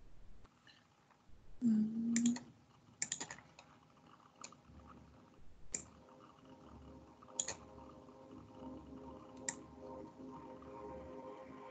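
Sparse computer mouse and keyboard clicks, about six of them a second or two apart, with a brief low hum about two seconds in.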